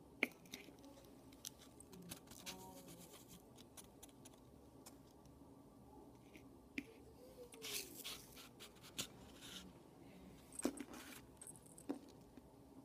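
Faint small handling sounds: salt trickling from a rolled paper funnel into a tiny glass bottle, with paper rustling and scattered light ticks. A few sharper clicks near the end as the glass bottle is handled in a plastic dish.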